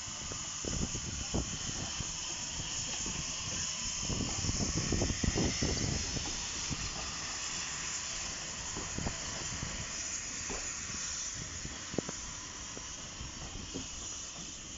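Hudswell Clarke 0-6-0 saddle tank steam locomotive passing with its cylinder drain cocks open: a steady hiss of steam, over irregular clanks and knocks from the wheels and coaches on the rails.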